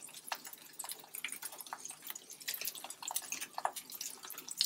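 Beef burger patties frying in their grease on a flat griddle, sizzling with irregular small pops and crackles.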